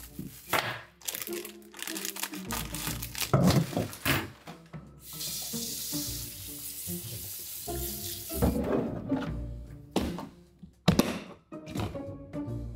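Kitchen tap running into a stainless-steel sink for a few seconds midway, between clatters and thunks of kitchenware and a plastic food container being handled, with background music.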